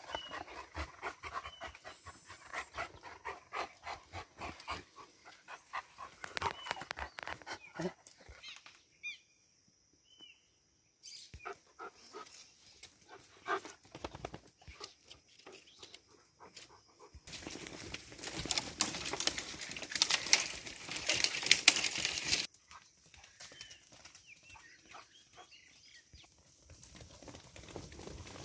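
Maremma sheepdog panting close by among a flock of sheep, with scattered scuffs and clicks. A little past the middle comes a loud rustling noise lasting about five seconds.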